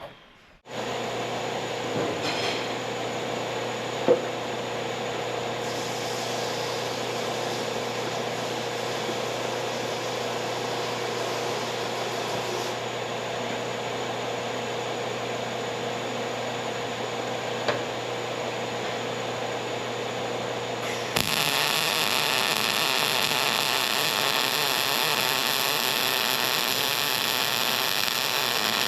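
Vulcan MIG-Max 215 MIG welder laying a test bead with solid wire under shielding gas: a steady crackling hiss of the arc that grows louder and brighter about 21 seconds in.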